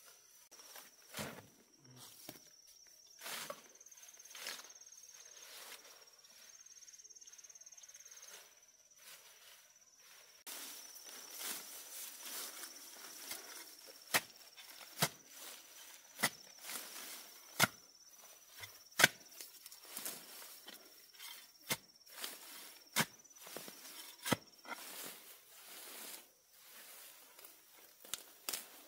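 Insects chirring in one steady high tone outdoors, which stops near the end. In the second half comes a run of sharp knocks, about one a second.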